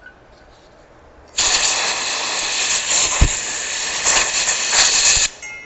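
Compressed-air blow gun hissing steadily for about four seconds, starting and stopping abruptly, as it blows residual oil and dirt off an automatic transmission clutch part. A brief knock sounds about halfway through.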